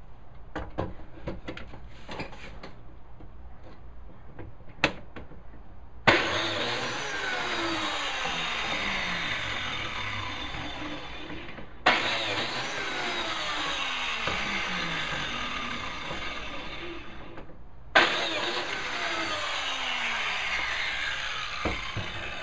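A Porter-Cable biscuit joiner cutting biscuit slots in the edge of a hardwood tabletop. Its motor starts three times with a sudden jolt and runs about six seconds each time, with tones sliding down in pitch as the blade cuts. Before the first cut come light clicks and knocks as the tool is set against the edge.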